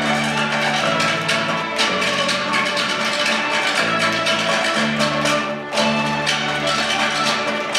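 School orchestra playing live: bowed strings over held bass notes, with crisp percussive accents.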